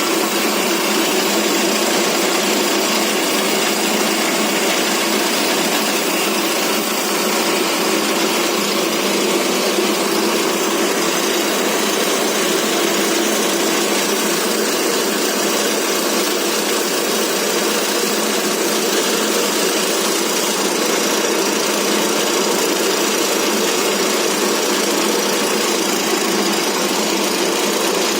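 Feed pellet machine running, driven by its 22 hp diesel engine: a loud, steady mechanical drone that does not change.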